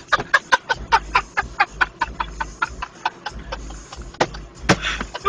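A person laughing hard in quick short bursts, about four a second, with a louder burst near the end.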